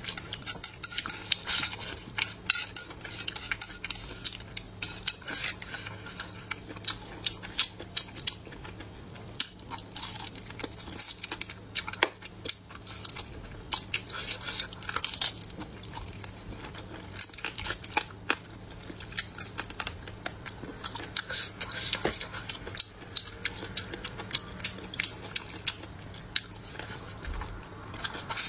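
Close-miked eating of braised pork trotter. Chopsticks click against a ceramic bowl, then there are wet chewing, biting and lip-smacking sounds as the sticky skin and meat are eaten by hand, with many sharp little clicks throughout.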